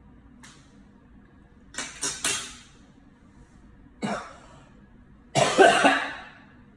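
A man coughing and gagging in disgust after biting into a vinegar-soaked, cooked egg. There are three quick coughs about two seconds in, another about four seconds in, and a longer, louder one near the end.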